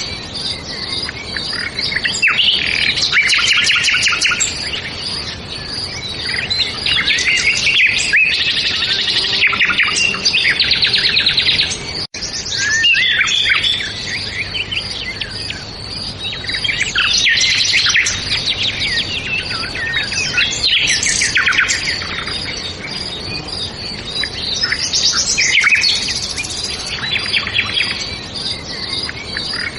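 Several songbirds chirping and singing at once, a dense chorus of quick, high chirps and trills overlapping one another, with a momentary break about twelve seconds in.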